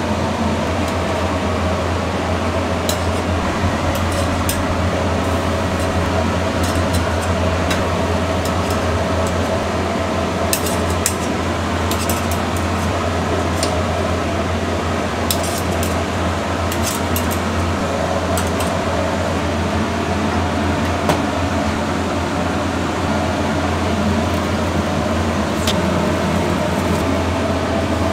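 Steady drone of a ventilation fan, with scattered sharp crackles from burning rice straw smoking the chicken.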